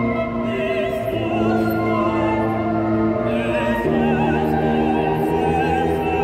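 Choir singing with a wind band of saxophones, clarinets, horns and tuba: held chords with vibrato in the upper voices, moving to new chords a few times.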